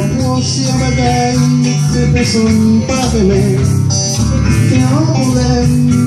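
Live music through a PA: electric guitar and a man's singing over a bass line and a steady beat.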